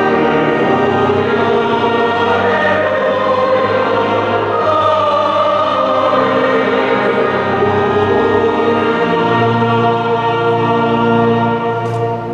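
Choir singing a sung part of the Mass in long, held chords. The singing fades just before the end.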